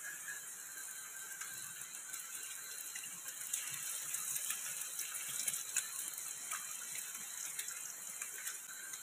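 An egg frying in hot oil in an aluminium wok on a portable gas stove. The sizzle grows louder about three or four seconds in, after the egg goes into the oil, and a wooden spatula clicks and scrapes against the pan.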